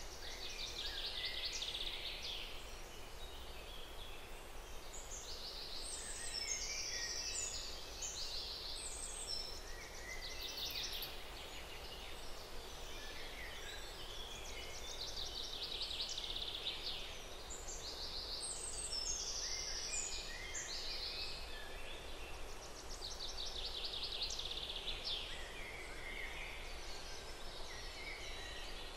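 Birdsong ambience: many small birds chirping and trilling over a steady outdoor hiss, with the same run of calls coming back about every twelve seconds, as in a looped nature soundscape.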